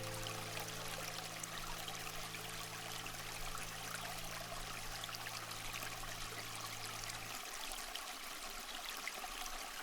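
Steady trickling, stream-like water hiss under a low sustained ambient drone; the drone stops about seven seconds in, leaving only the water sound.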